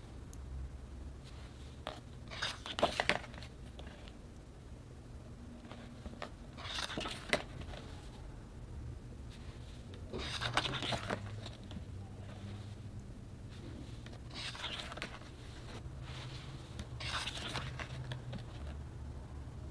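Packaging handled by hand during an unboxing: short bursts of rustling and crinkling, about five of them spaced a few seconds apart.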